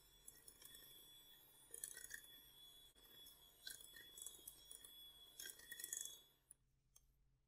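Bosch electric hand mixer running at a steady speed with a high whine, its beaters clinking against the glass bowl several times as they beat flour into batter. It switches off about six and a half seconds in.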